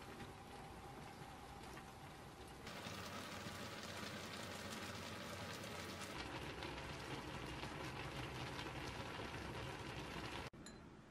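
A pot of spicy fish cakes in red sauce simmering, the sauce bubbling and popping steadily like light rain. It cuts off abruptly near the end.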